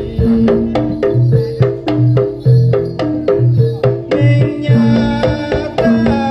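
Live jaranan gamelan accompaniment: drums and struck bronze gongs and metallophones playing a fast, even beat of about three strokes a second, with deep drum strokes under it. A sustained melodic line joins about four seconds in.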